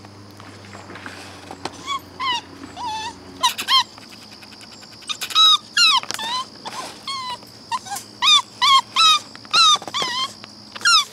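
A dog yipping and whining in a long run of short, high-pitched calls, some coming in quick pairs.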